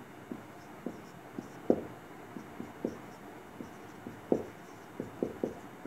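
Marker pen writing on a whiteboard: about a dozen soft, irregular taps and short scratches as the strokes of a word go down.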